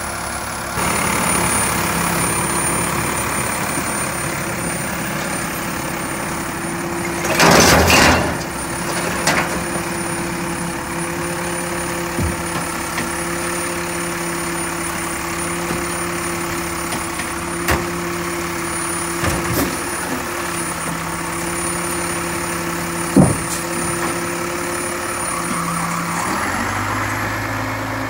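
Mack LEU recycling truck's diesel engine idling steadily, with a loud hiss about seven and a half seconds in and several sharp knocks scattered through. Shortly before the end the engine note changes as the truck moves off.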